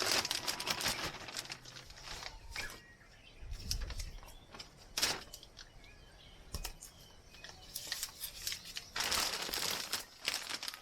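Plastic bag of potting soil crinkling and rustling as it is handled, in irregular bursts with sharp crackles.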